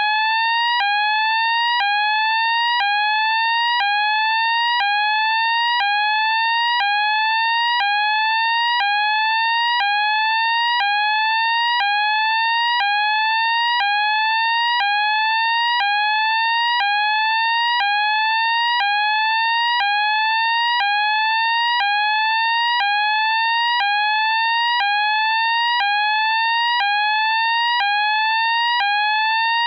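British Standard electronic fire alarm sounder on its sweeping tone: a loud, steady tone that rises in pitch and snaps back down about once a second, repeating without a break.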